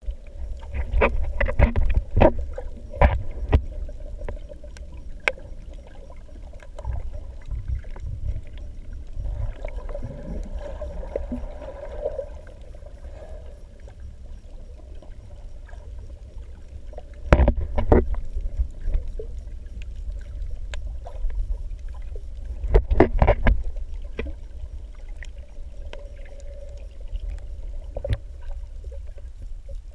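Muffled underwater sound through a GoPro camera's waterproof housing: a low steady rumble with a faint steady hum, broken by bursts of clicks and knocks, the loudest near the start, about 17 seconds in and about 23 seconds in.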